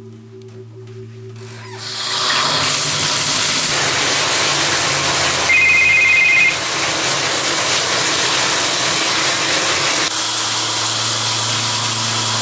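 Water runs hard from a bathtub faucet, starting about two seconds in and easing near the end, over a steady low hum. Midway, a flip phone rings with a steady two-tone beep for about a second.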